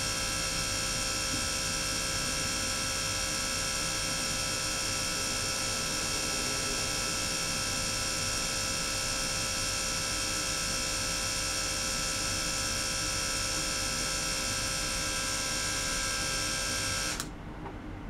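Small DC-motor gear pump running with a steady, many-toned mechanical whine. The whine cuts off suddenly near the end, leaving a lower rumble.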